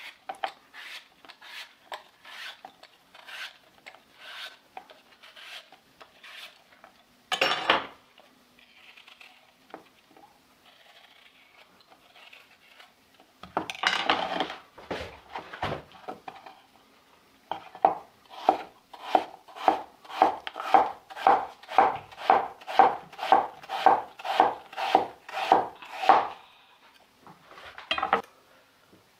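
Apple being peeled with a small knife, light scraping with a knock on the wooden board, then a chef's knife slicing the apple on the wooden cutting board in a steady run of strokes, about two and a half a second, in the second half.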